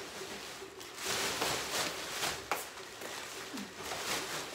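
Rustling and crinkling of wrapping paper and a plastic trash bag being handled and stuffed, with a sharp click about two and a half seconds in.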